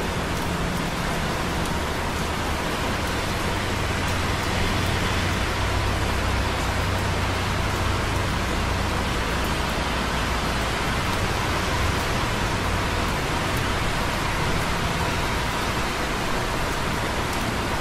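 Light rain dripping on concrete close by, over the steady wash of busy traffic on wet roads, with a low rumble that swells and fades as vehicles pass.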